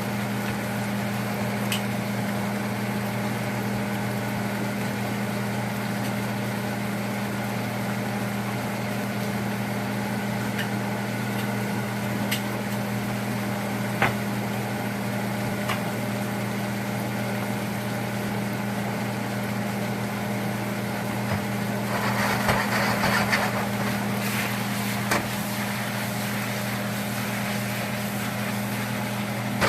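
Steady low mechanical hum with a few light clicks, and a louder stretch of rustling, sizzling-like noise about 22 seconds in.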